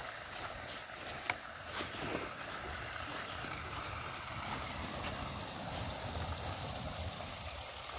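Faint, steady outdoor night background noise, with traffic passing on a distant road and a few light clicks in the first couple of seconds.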